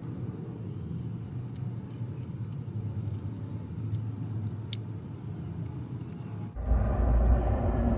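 Low, steady outdoor rumble with a few faint, sparse clicks as the RC truck's wires and plastic parts are handled. The rumble grows louder about six and a half seconds in.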